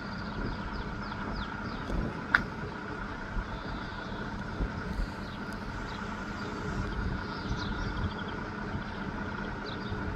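A steady low mechanical hum and rumble, like an engine running nearby, with a sharp click a little over two seconds in. High chirps from birds come and go over it.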